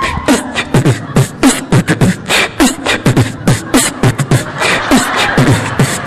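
Beatboxed hip-hop beat: a fast, steady run of vocal kick and snare sounds between sung lines.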